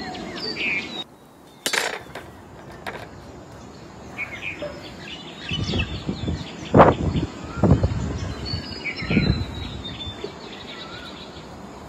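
Small birds chirping in the background, with a sharp click under two seconds in and a few low thumps about halfway through, like wind or handling knocks on the microphone.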